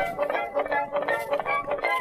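Background music: a quick, bright tune of plucked-string notes.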